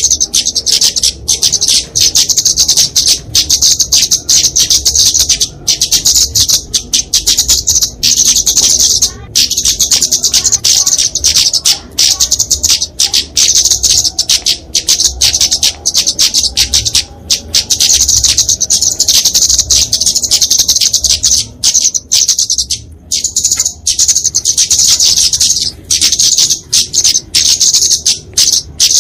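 Flowerpecker (kemade, genus Dicaeum) calling in fighting mode: a nonstop stream of rapid, thin, high-pitched chirps and ticks, broken only by short pauses.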